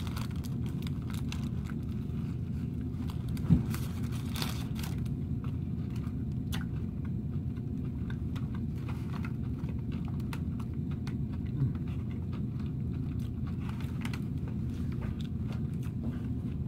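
A person biting into and chewing a crispy fried fish sandwich close to the microphone, with small crunches and mouth clicks over a steady low rumble, and one sharper thump about three and a half seconds in.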